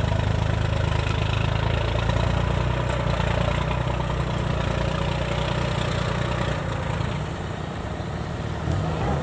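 Kubota DC-70 Plus combine harvester's diesel engine running steadily while the machine sits stuck in deep mud; it eases off a little about seven seconds in.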